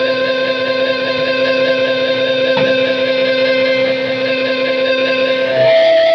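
Electric guitar ringing out through an amp as one long sustained drone with a slight steady wobble, with no drums. About five and a half seconds in it shifts to a new, higher held pitch.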